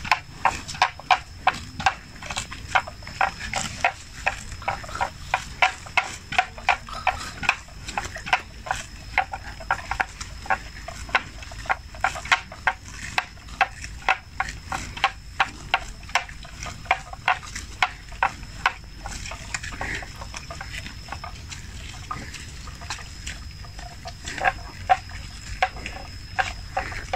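Water buffalo grazing, tearing and cropping grass in a rhythmic run of sharp crunching bites about two a second, which thins out for a few seconds past the middle and picks up again near the end.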